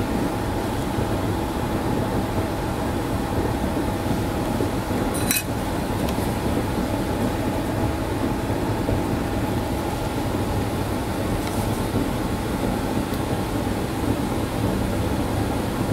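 Steady background hum and hiss, with two brief small metallic clicks about five and eleven seconds in, typical of fine steel tweezers touching the metal chip-carrier fixture.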